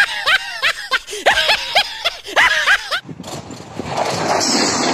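A run of laughter, rhythmic pitched 'ha' sounds, cut off abruptly about three seconds in. A passenger train hauled by an electric locomotive is then heard approaching at high speed, a rushing rail-and-wind noise that builds and holds loud.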